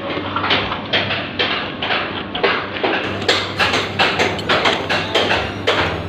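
Construction-site knocking, about two to three sharp blows a second in a fairly even rhythm, over a steady low machine hum.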